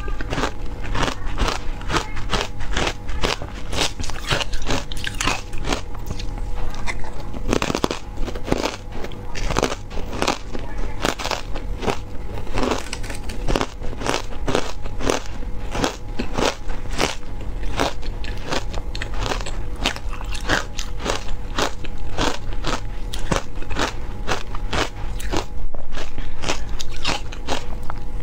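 A person biting and chewing frozen ice (matcha ice and carbonated ice) close to a clip-on microphone: a dense, unbroken run of many quick, crisp crunches.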